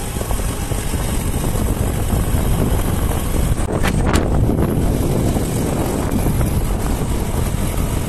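Riding noise on a moving motorcycle: wind buffeting the phone's microphone over the running engine, steady throughout. A couple of brief knocks about four seconds in as the phone is moved.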